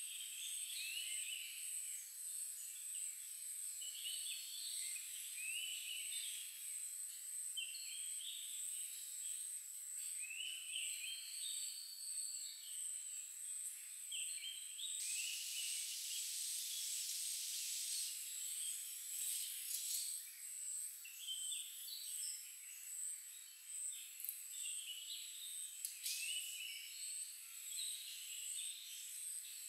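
Forest ambience: a steady high-pitched insect trill, repeated short bird chirps, and a stretch of louder hiss about halfway through.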